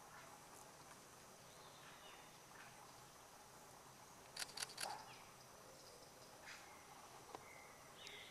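Quiet forest ambience: a steady high-pitched insect drone with a few faint bird chirps, broken about four and a half seconds in by a quick cluster of three or four sharp clicks.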